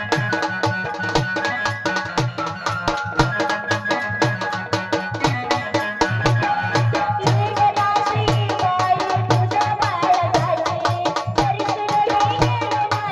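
Music: a melody line of held, stepping notes over a steady, evenly spaced drum beat, a passage of a Marathi song with no words sung.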